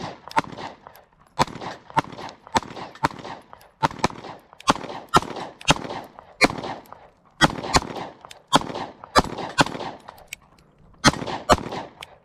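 Two compact pistols, a Sig Sauer P365 and a Springfield Hellcat, firing fast, overlapping strings of shots side by side, each shot trailing a short ringing echo. There is a brief lull about ten seconds in before the shooting picks up again.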